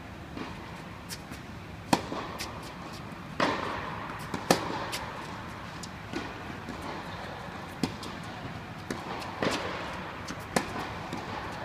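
Tennis balls struck by rackets and bouncing during a rally on an indoor court: sharp pops spaced irregularly one to three seconds apart, each with a short echo from the hall.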